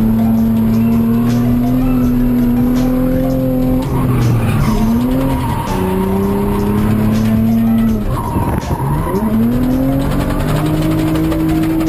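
Car engine held at high revs with tyres skidding and squealing; the revs drop and climb again twice, about four and eight and a half seconds in.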